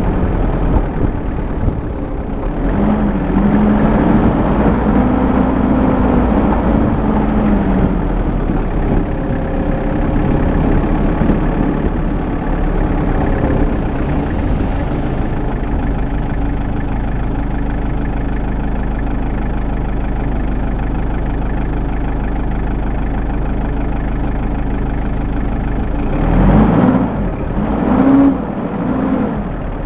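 Off-road vehicle's engine heard from inside the cabin while driving a rough dirt track, running steadily, with the revs rising and falling a few seconds in and again near the end.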